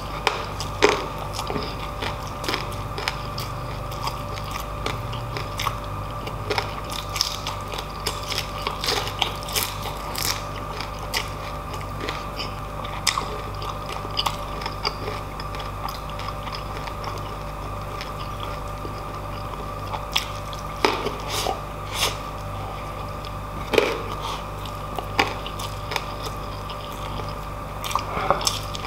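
Close-miked chewing and biting by a person eating, with frequent short crunches of crispy fried pork skin (lechon kawali).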